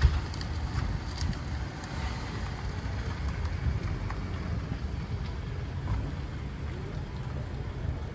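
Low, steady outdoor rumble, with a thump right at the start.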